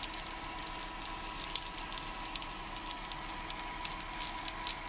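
Leftover jambalaya reheating in a pan on an induction cooktop: faint, irregular pops and crackles over a steady high electrical whine.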